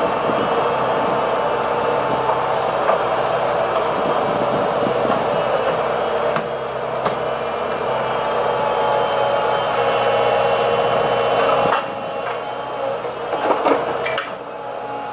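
Heavy diesel machinery running steadily with a whining tone over the engine noise. There are a couple of sharp clicks about six and seven seconds in, the level drops suddenly near twelve seconds, and a few knocks come near the end.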